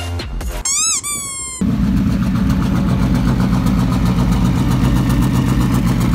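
Audi quattro sedan's engine idling steadily, heard close behind its rear bumper and exhaust. It starts about one and a half seconds in, after a brief high wavering squeal.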